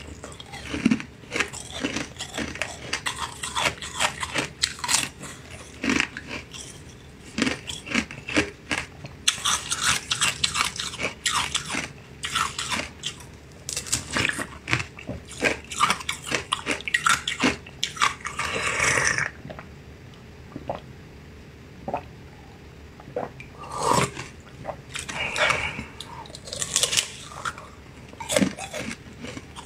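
Close-miked eating sounds from a soft, wet green jelly: many quick wet bites, smacks and chewing clicks in an uneven run, with one longer wet rush of noise about two-thirds through.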